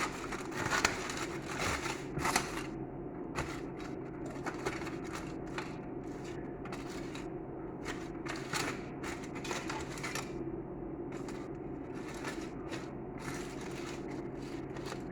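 Flesh being scraped out of a hot grilled potato: scattered short scrapes and clicks of a utensil against the potato, more frequent in the first few seconds, over a steady low hum.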